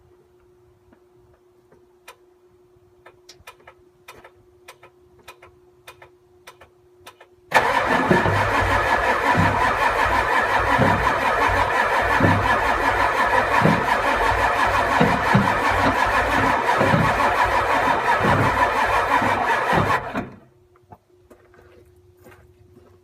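Ford 7.3 IDI diesel V8 cranked on its starter for about twelve seconds with uneven heavy pulses, stopping abruptly without the engine catching. Before it, faint ticks over a steady low hum.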